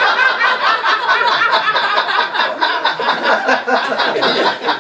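A group of men laughing together, many voices overlapping in quick chuckles.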